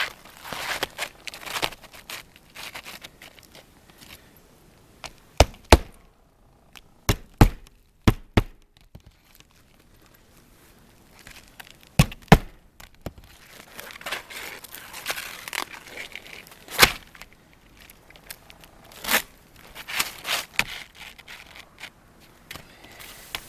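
Hammer driving nails by hand into roof decking: sharp blows at irregular intervals, often two in quick succession. Between them come stretches of rustling and tearing as roofing material is handled.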